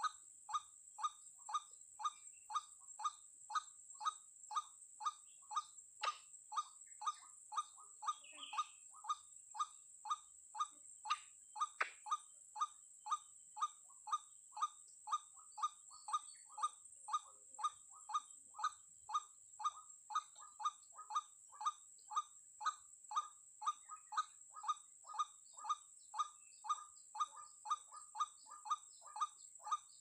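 White-breasted waterhen calling over and over, one even call about every half second.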